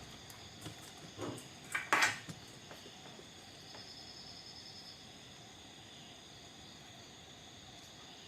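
A few small clicks and knocks, with one short, louder noisy burst about two seconds in, then a faint steady hiss with a faint high, thin tone for about a second.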